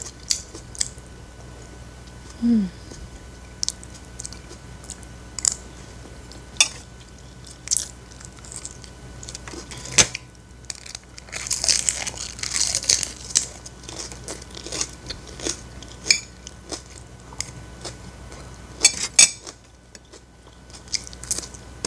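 Close-up mukbang eating sounds: chewing with the mouth near the mic, and a metal spoon clicking against a ceramic plate now and then. A little past halfway comes a stretch of loud, crisp crunching as she bites into a leaf of raw napa cabbage.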